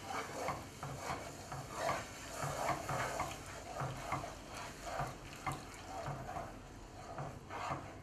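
Wooden spoon stirring and scraping a thick butter-and-flour roux around a frying pan in repeated strokes, roughly two a second, as poaching milk is worked in bit by bit to make a white sauce.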